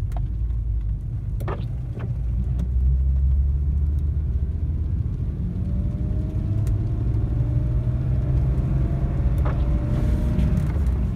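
BMW E36 M3's straight-six engine and drivetrain heard from inside the cabin, pulling away in second gear: a low rumble that grows louder about two seconds in, with the engine note slowly rising in pitch. A few sharp clicks are heard near the start and near the end.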